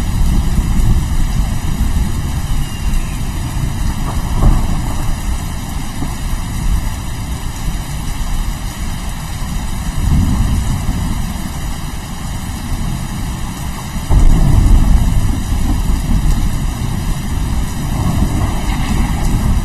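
Steady rain with repeated low, rolling rumbles of thunder that swell and fade, the strongest starting about 14 seconds in.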